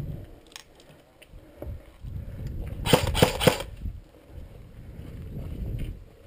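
Footsteps and knocks of a person moving on foot with a body-worn camera. About three seconds in, a loud burst of three or four sharp clacks with rustling lasts under a second.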